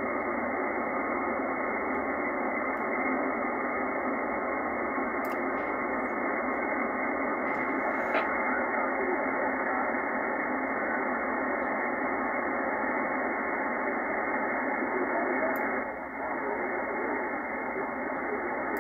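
Single-sideband receiver audio from a FlexRadio software-defined radio on the 20-metre band: a steady hiss of band noise held inside the narrow voice filter, with a weak voice signal faint under it. The level drops slightly about sixteen seconds in as the AGC threshold is turned down.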